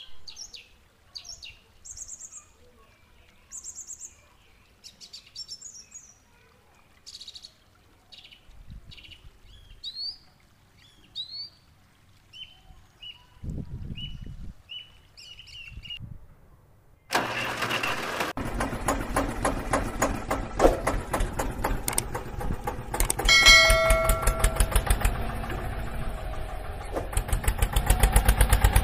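Birds chirping and singing. About halfway through, a tractor engine starts with a sudden loud onset and keeps running with a fast, even beat, with a brief steady tone a few seconds later, and the beat grows louder near the end.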